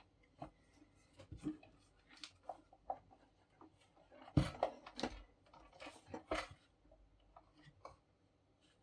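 Irregular clicks, taps and knocks of handling the paper laminator's housing and screws during reassembly, with the loudest knocks about four and a half seconds in and again around six seconds.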